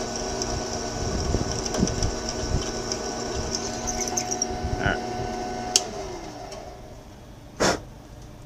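Drill press running with a steady multi-tone hum as a letter F drill bores through a cast-iron hand wheel hub. About six seconds in it is switched off with a click and winds down, and near the end there is one short burst of noise.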